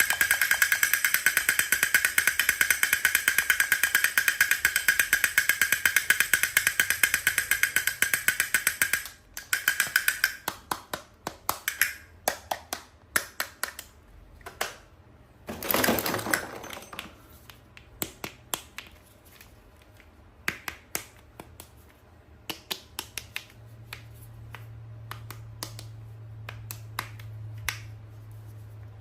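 A toy making a fast, steady rattle of clicks with a ringing edge for about nine seconds, which then stops. After that come scattered single clicks and taps of toys being handled, with one longer scrape or rustle about sixteen seconds in.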